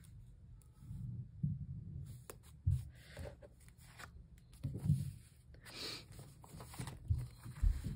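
Quiet desk sounds of hands working in a paper planner: scattered light taps and knocks, with short paper rustles and a louder rustle about six seconds in.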